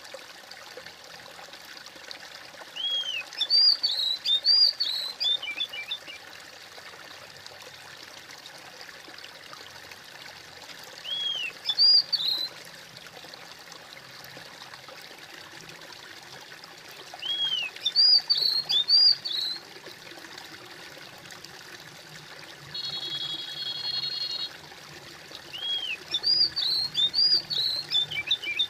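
Water trickling steadily, with a songbird singing four short phrases of quick rising-and-falling notes several seconds apart. A brief buzzy note sounds between the last two phrases.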